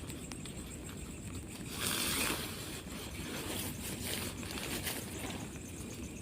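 Heavy rain falling steadily, with a louder rustling swish about two seconds in and a few faint clicks of handling.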